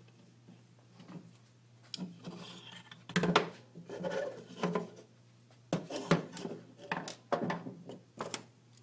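Laser-cut plywood frame parts and a screwdriver being handled on a wooden bench: rubbing and scraping as a screw is turned into the frame, then a run of sharp wooden knocks and clicks in the second half as the panels are moved.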